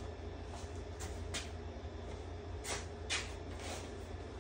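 Steady low hum of a small workshop room with a few faint short clicks and rustles, about four in all.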